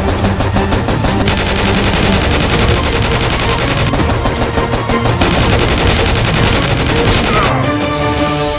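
Rapid machine-gun-style gunfire over background music. The shots stop about a second before the end, leaving the music.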